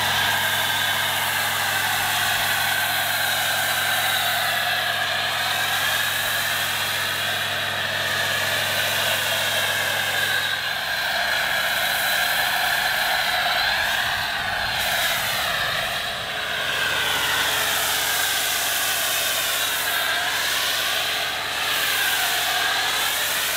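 Pressure washer spraying snow foam through a foam cannon: a steady, loud hiss of spray over the low hum of the washer's pump motor, the hum changing pitch about eleven seconds in.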